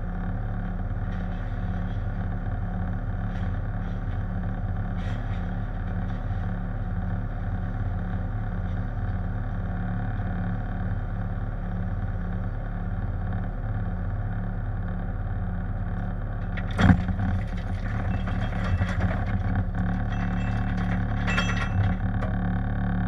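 Diesel engine of a compact Bobcat machine running steadily up close. About 17 seconds in there is a sharp bang, then a few seconds of clattering as the bucket works loose shale.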